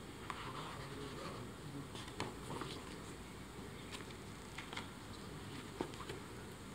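Faint rustling and a few soft taps as a picture book's cover and pages are turned over by hand.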